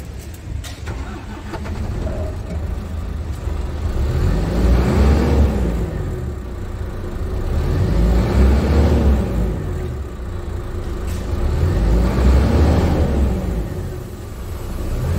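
Scania P280 truck's diesel engine, a nine-litre five-cylinder, heard from inside the cab. It idles for a few seconds, then is revved three times, each rev rising and falling back over three to four seconds.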